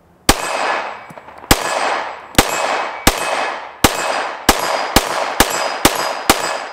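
Ten shots from a Shadow Systems MR920 Elite 9mm pistol, the first two about a second apart and then quickening to about two a second, each followed by a short echo. These are the first rounds through the new gun, said to need break-in, and it keeps firing without a stoppage.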